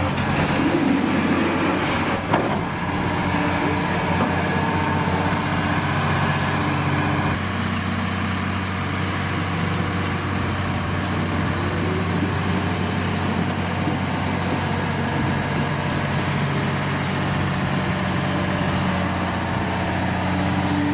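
Diesel engine of a crawler excavator running steadily at a constant speed, with a single knock about two seconds in.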